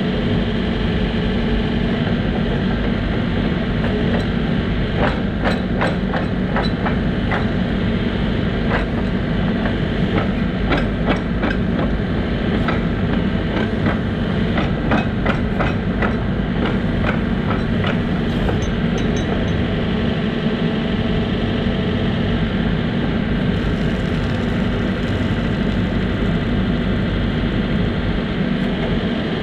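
Case 590 Super N loader backhoe's diesel engine running steadily while its arms are worked, with a run of sharp metal clanks and knocks from about five to eighteen seconds in as the boom, bucket and loader linkage move.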